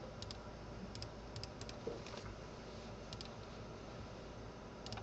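Computer mouse clicking: a handful of short, sharp clicks, mostly in quick press-and-release pairs, spaced irregularly, over a faint steady hum.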